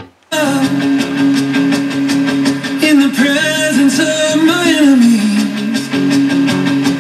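Radio playing a song with singing and guitar, cutting in after a brief silence at the very start: the scanning radio has stopped on a music station. It plays through the speaker of a 1948 Chevrolet car radio fitted with an Aurora Design conversion.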